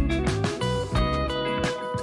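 Background music: guitar-led track with bass and a steady beat.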